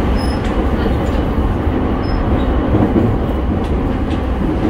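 Running noise inside a motor car of a JR East E217 series electric train: a steady rumble of wheels on rail, with a faint hum from the traction motors that comes and goes.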